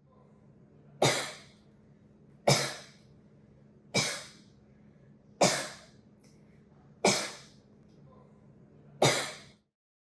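A person coughing six times, single sharp coughs about every one and a half seconds over a faint steady hum, recorded as a sample for smartphone cough analysis.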